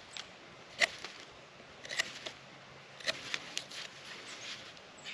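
Knife blade shaving the edge of a hard persimmon log, several short scraping cuts about a second apart.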